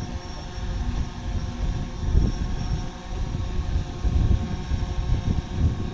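Wind buffeting the microphone in uneven gusts, over a faint, steady motor hum.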